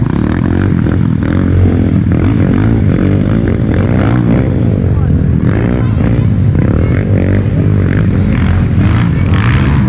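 Motorcycle engines running, their pitch rising and falling with the throttle, with faint voices underneath.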